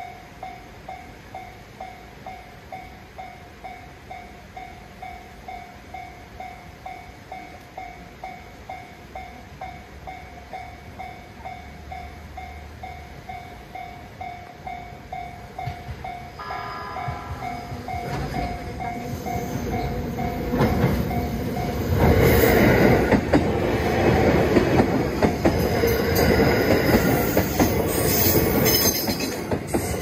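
Japanese level-crossing bell dinging at a steady, even pace as a JR East E129 series electric train approaches. The train gives a brief horn a little past halfway, then runs past close by with a growing noise and wheel clatter, loudest over the last several seconds.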